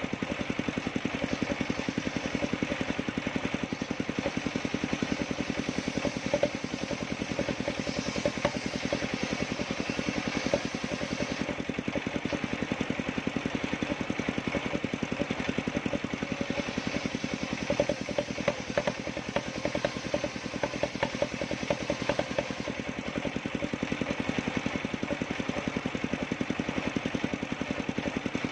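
Engine of a homemade circular-saw sawmill running steadily with a fast, even pulse. Scattered clattering knocks come in a cluster past the middle.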